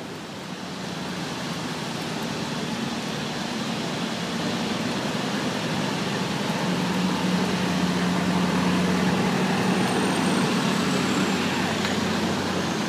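A motor vehicle's engine hum building over several seconds and easing slightly near the end, over a steady rush of storm surf and wind.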